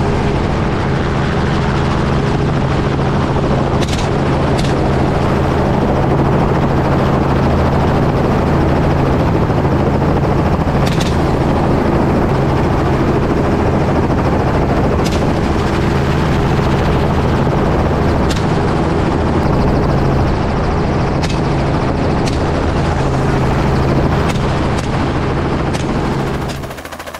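Helicopter running steadily in flight, its rotor and engine drone constant, with a dozen or so sharp gunshots scattered through it, coming closer together in the last several seconds. The drone drops in level near the end.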